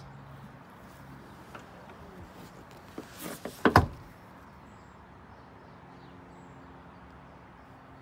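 A brief rustle, then one sharp clunk about three and a half seconds in: the rear seat back of a 2012 Honda CR-V moved and catching in its newly replaced seat latch.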